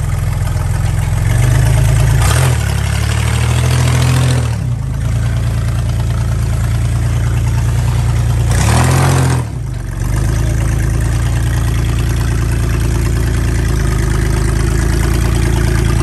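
Suzuki Samurai's four-cylinder engine running at low crawling revs, revved up twice: once for about three seconds from near the start, and again more briefly about nine seconds in, each time dropping back to a steady idle.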